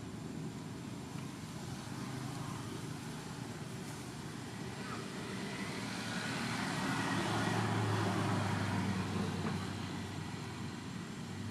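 A motor vehicle going by: a steady engine hum that swells to its loudest about eight seconds in and then fades.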